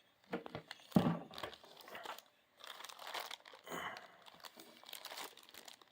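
Plastic packaging crinkling and rustling in irregular handfuls, with a sharper crackle about a second in, as a boxed car-audio horn is handled and unwrapped.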